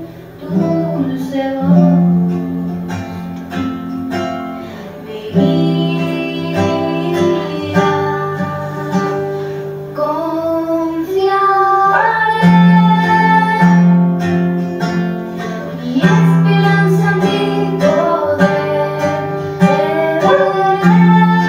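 Acoustic guitar accompanying a young woman singing a slow song.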